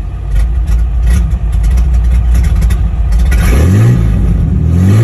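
Ford Ranger pickup engine started after a no-start, with its relays jumped, now running. Near the end it is revved twice, the pitch rising and falling each time.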